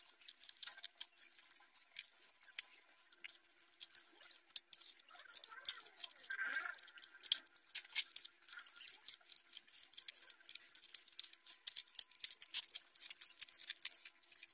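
Thin aluminium sheet strips being bent and pressed by hand, giving many quick, light metallic clicks and crinkles.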